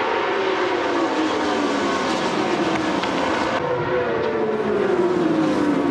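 A pack of racing superbikes running at high revs, several engine notes overlapping and sliding down in pitch.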